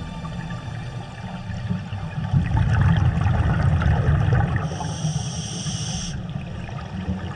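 Underwater rush of river current heard from beneath the surface, a low rumbling noise that swells in the middle. A brief hiss higher up comes in about five seconds in and stops sharply after a second or so.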